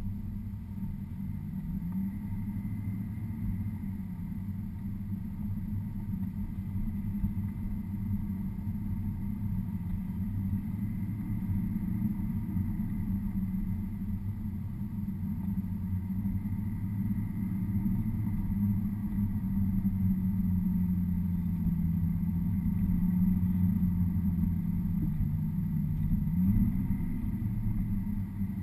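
A car's engine and tyre noise heard from inside the cabin while driving a winding road. The engine's pitch drifts up and down with speed, and it revs up once near the end.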